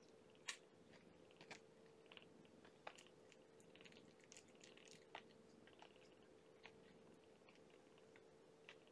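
Very faint wet smacking and clicking from kittens suckling at their mother, irregular, over a faint steady hum.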